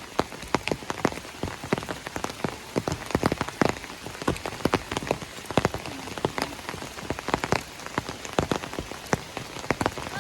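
Heavy rain falling, with many sharp, irregular taps of large drops striking close by over a steady hiss.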